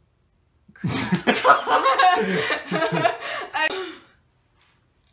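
A woman laughing, starting about a second in after a short silence and lasting about three seconds.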